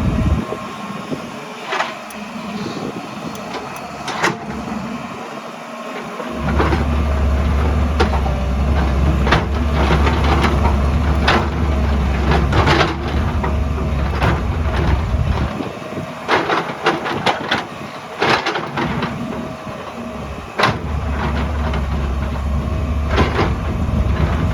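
Hydraulic excavator working: the diesel engine runs with a low drone that drops away for a few seconds twice, under frequent sharp clanks and knocks from the bucket striking and scraping rock and earth.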